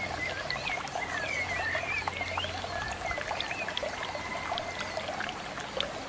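Water trickling steadily, with a crackle of small ticks, under short wavering bird chirps. A low held music tone fades out about three seconds in.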